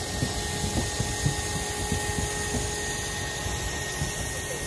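Steam locomotive moving slowly, a steady hiss of steam with many small irregular knocks and clanks from its wheels and running gear.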